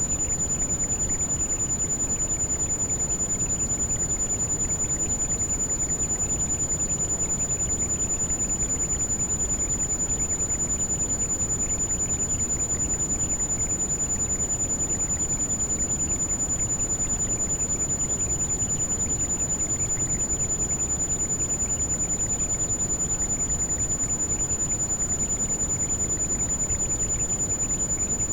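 Heavy rain as a steady, even hiss of noise weighted to the low end, with a single steady high-pitched tone laid over it: a tinnitus tone mixed into the rain for tinnitus masking.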